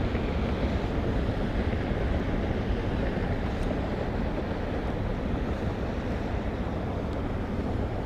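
Steady wind noise on the microphone, a low rumble with a hiss above it that holds even throughout.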